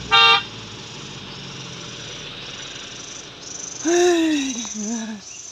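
Insects, likely cicadas, buzzing in pulses of about a second each. A brief loud tone sounds at the very start, and about four seconds in a hooting call falls in pitch.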